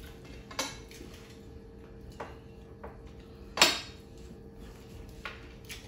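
Eating by hand from a plate of jollof rice and grilled salmon: fingers and food on the plate, with a few short clicks and taps, the loudest about halfway through.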